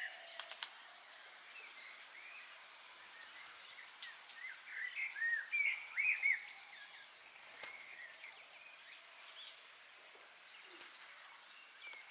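Small birds chirping in short bursts of quick, arching high notes, busiest about halfway through, over faint outdoor background noise.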